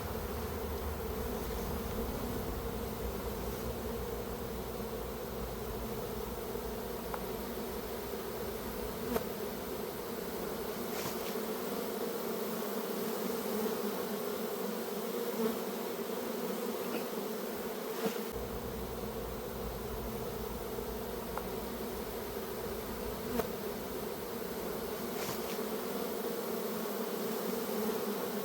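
A swarm of honeybees buzzing steadily in flight around the hive box as the swarm settles in, one even, continuous hum.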